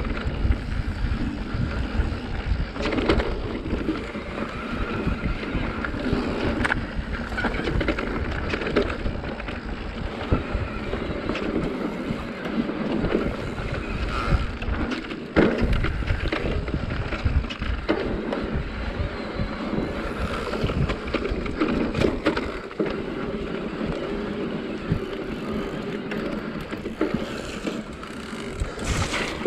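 Mountain bike riding fast down a dirt forest singletrack: tyres rolling over packed dirt and roots, with the bike clattering and knocking over bumps and a steady low rumble of vibration and wind on the handlebar-mounted camera.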